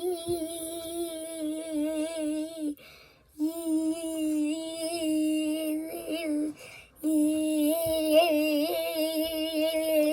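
A child's voice singing three long held notes on nearly one pitch, each a few seconds long, with short breaks between them.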